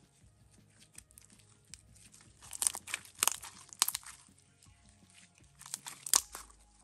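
Sticky shampoo slime being stretched and squished between the hands, giving wet crackling clicks and pops that come in two louder bursts, about two and a half seconds in and again near six seconds.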